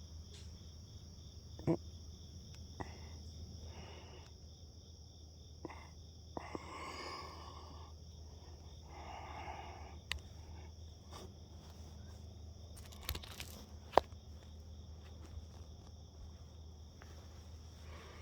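Crickets and other insects chirping steadily over a low steady hum, with a few sharp clicks and taps, the loudest about fourteen seconds in.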